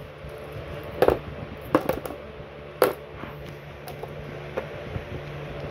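Coins and plastic ballpens being handled and set down on a cardboard box, making a scattering of light clicks and taps, about half a dozen in all.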